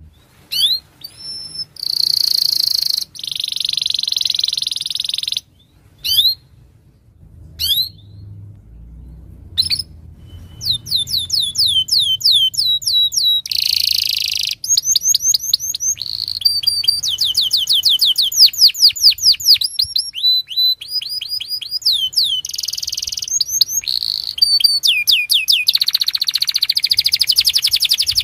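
Domestic canary singing a long, loud song of fast trills made of rapidly repeated falling notes, mixed with buzzy rolls. It breaks off a few times in the first ten seconds, then sings almost without a break.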